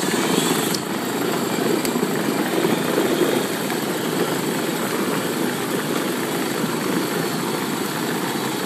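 Battery-powered ride-on toy Ford pickup driving along pavement: a steady, loud rumble of its hard plastic wheels on the asphalt with its electric drive running.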